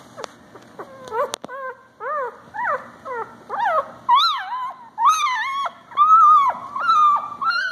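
Newborn puppies crying and squealing for their mother: short rising-and-falling cries, several overlapping, that grow louder and come faster from about four seconds in.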